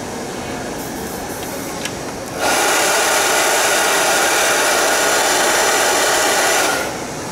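Hand-held hair dryer switched on about two and a half seconds in, blowing steadily with a thin whine for about four seconds, then switched off.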